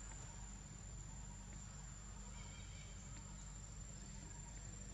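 Insects keep up a steady high-pitched drone, one unbroken tone, over a faint low hum. A few faint short chirps come in about halfway through.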